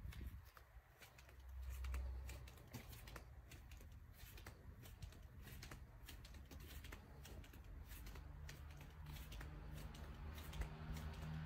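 Faint low rumble with many light, scattered clicks and ticks; the rumble swells briefly about two seconds in, and a faint low hum comes up in the second half.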